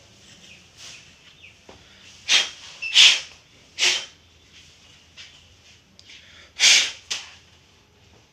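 About five short hissing puffs of air, aimed at the dust-clogged cooling fan of a laptop being cleaned.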